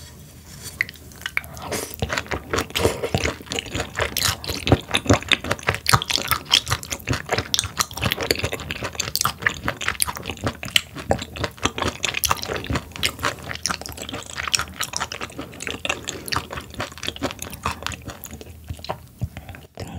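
Close-miked chewing of raw sturgeon sashimi: wet, squishy mouth sounds made of many quick, irregular clicks and smacks.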